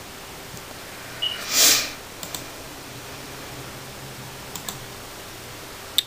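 Quiet room tone with a few faint clicks and one short breathy rush of noise about a second and a half in.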